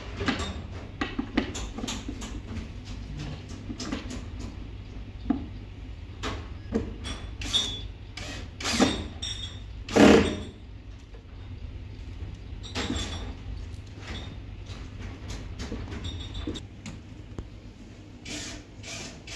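Scattered knocks, clicks and scrapes of cabinet panels being handled and fitted together, with a louder thump about ten seconds in.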